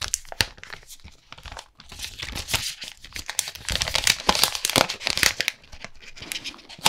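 Frosted plastic protective wrapper being peeled off a phone, crinkling and crackling; sparse crackles at first, growing denser and louder about two seconds in.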